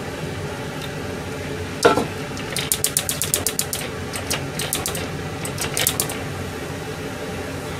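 Gas stove burner being lit: the igniter clicks rapidly, about nine clicks a second, in several runs over a steady low hum, with a single knock shortly before the clicking starts.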